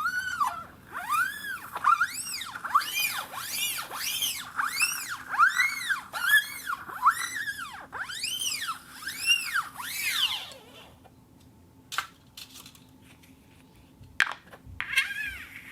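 Plastic cup rubbing on a rotating turntable plate, squeaking in a quick series of tones that each rise and fall in pitch, about one or two a second. About eleven seconds in the squeaks stop, leaving a few light clicks, and the squeaking starts again near the end.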